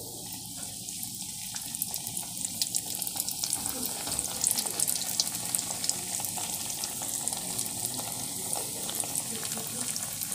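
Egg-and-spring-onion-filled spring-roll-wrapper parcels (martabak telur) frying in hot oil in an aluminium wok: a steady sizzle with many small crackling pops. The crackling grows busier from about four seconds in.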